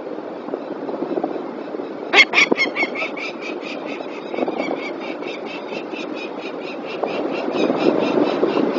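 Peregrine falcon calling: a fast run of short, harsh notes, about six or seven a second, starting about two seconds in. A steady low background rush lies under the calls.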